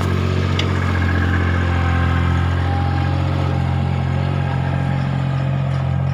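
Vehicle engine idling steadily, with an even, deep hum.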